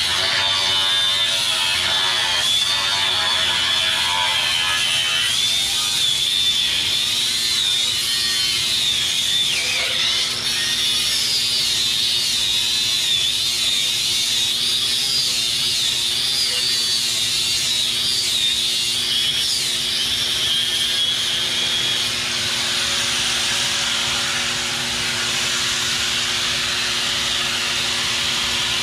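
Electric angle grinder cutting into a steel truck frame rail, a steady high whine that wavers in pitch as the wheel bites into the metal. About 22 seconds in the high whine drops away, leaving a rougher rushing sound.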